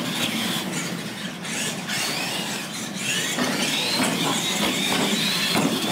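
Radio-controlled monster trucks racing, their electric motors and gears whining and rising and falling in pitch with the throttle.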